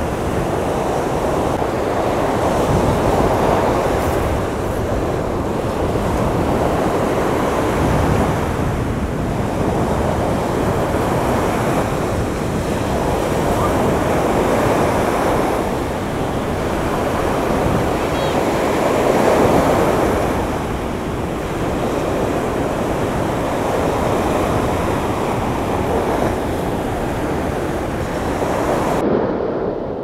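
Rough Sea of Azov surf breaking along a shallow sandy shore, a steady wash that swells and eases every five or six seconds as waves roll in. Wind buffets the microphone.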